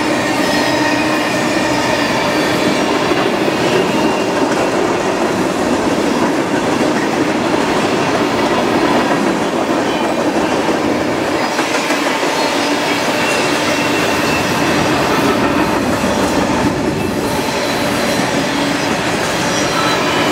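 Freight train cars, tank cars and then covered grain hoppers, rolling past close by: a steady, loud rumble of steel wheels on rail with several steady high ringing tones from the wheels over it.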